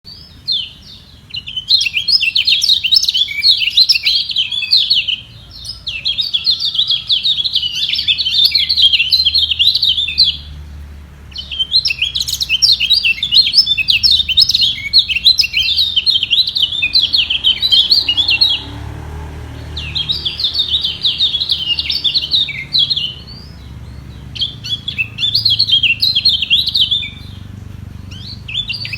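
Kecial kuning (lemon-bellied white-eye) song: fast, high, chattering twittering, delivered in long phrases of several seconds each, broken by short pauses, as the birds sing against each other in a song duel.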